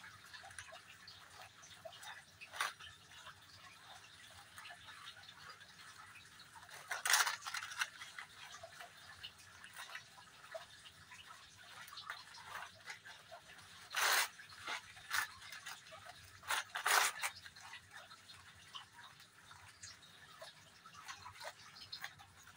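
Hands pressing and spreading potting soil in a plastic seedling tray: faint, soft crumbling and rustling, with a few short scraping bursts about seven seconds in and again between about fourteen and seventeen seconds.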